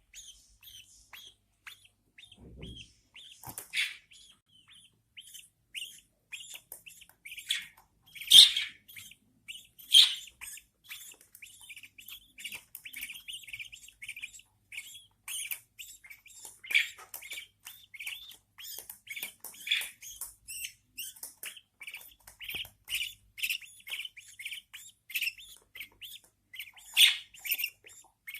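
Newborn budgerigar chicks begging in the nest: a rapid, continual run of short high cheeps that grows busier, with a few louder calls standing out now and then. The begging is the hungry call of chicks waiting to be fed.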